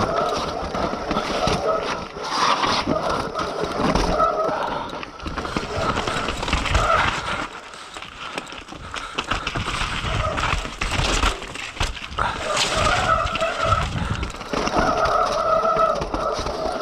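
Mountain bike descending a rocky trail: tyres and frame rattling and knocking over rocks and roots, with a wavering buzz that fades in the middle and comes back about three-quarters of the way through.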